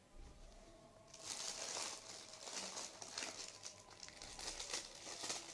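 Clear plastic packets crinkling as they are handled: a dense, crackly rustle that starts about a second in and goes on unevenly.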